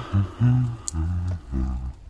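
A man's low voice making about five short wordless sounds, steady in pitch, with brief gaps between them.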